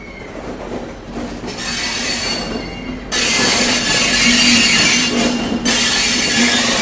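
Indian Railways WAP-7 electric locomotive rolling slowly past with a steady hum. A loud, high hissing squeal from its wheels on the rails comes in sharply about three seconds in, dips briefly and returns near the end.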